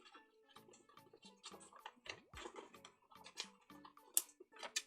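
Sticker sheets and paper being handled: soft, irregular crinkles, taps and clicks.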